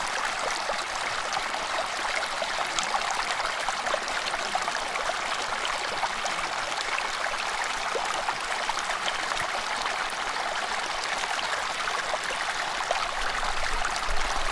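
Small mountain stream running over rocks, a steady rushing babble with no change throughout.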